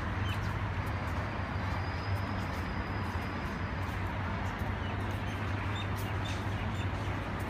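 Steady outdoor background noise: an even low hum under a constant rushing hiss, with a few faint clicks.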